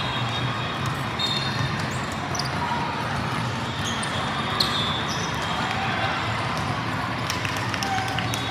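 Volleyball game ambience: a steady wash of court and crowd noise with scattered sharp knocks of volleyballs being hit and bouncing on the floor.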